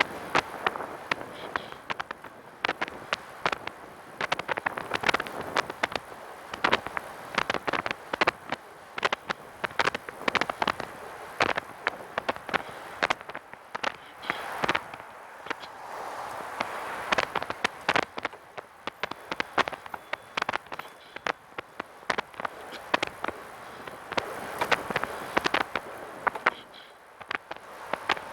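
Irregular rattling clicks and knocks, several a second and unevenly spaced, from the rear of a Catrike 700 recumbent trike while it rolls along over a steady rushing noise: a random rattle whose cause behind the seat or near the rear wheel has not been found.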